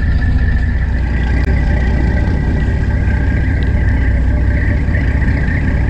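Fishing boat's engine running steadily, a constant low rumble with a steady high whine over it, heard from on deck.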